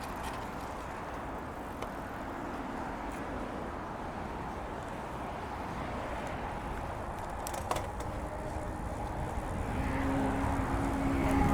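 Steady rush of wind and tyre noise from a road bike riding along a paved bike path, with a single sharp tick past the middle. In the last few seconds a louder, steady pitched mechanical hum builds up over it.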